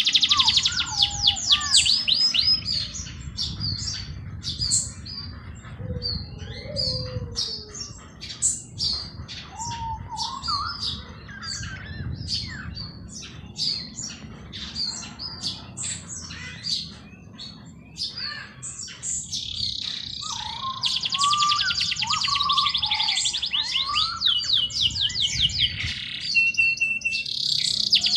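Several songbirds singing and chirping in a dense chorus. Rapid high trills come at the start and again in the last third, with short chirps and lower whistled notes in between.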